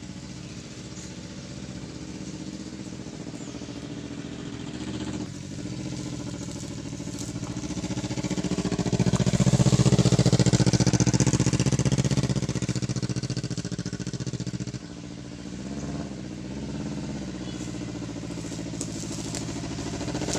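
Kawasaki Ninja sport bike's engine running through a homemade bamboo-tube exhaust, growing louder as the bike rides up and passes close about ten seconds in, then running steadily as it pulls up.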